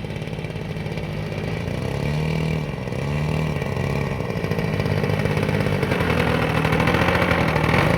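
OS GT33 single-cylinder two-stroke gas engine of an RC Yak 54 aerobatic plane running, its pitch rising and falling a couple of times about two to three seconds in and growing louder toward the end.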